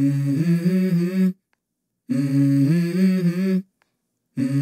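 Background music: a hummed vocal melody in three short phrases, each a few steady notes stepping up and down, with dead silence between the phrases.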